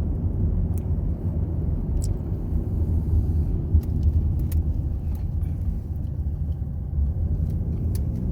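Steady low rumble of a car driving, heard from inside the cabin, with a few faint scattered clicks.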